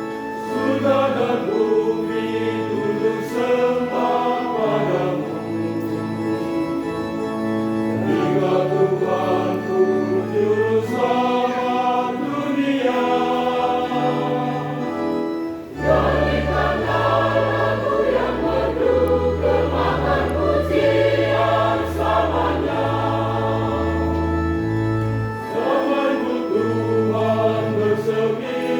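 Church choir singing a hymn in parts, over instrumental accompaniment with a steady bass line. The music dips briefly just before the halfway point, then comes back fuller.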